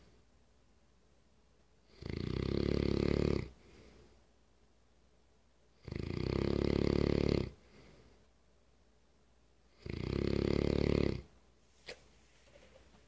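English Mastiff snoring very loudly while awake: three long, buzzy, rattling snores about four seconds apart, with quiet breaths between them.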